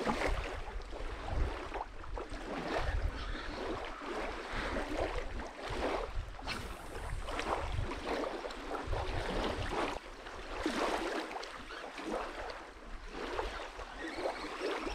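Wind buffeting the microphone in uneven gusts, with small waves lapping at a sandy shore.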